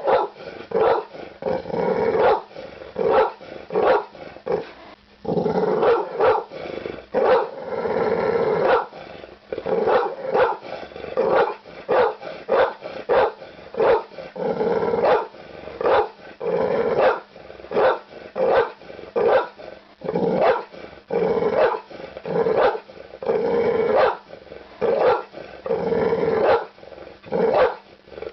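Cartoon bulldog sound effect: repeated gruff barks, about one or two a second, with a few longer drawn-out growling calls around the six- and eight-second marks.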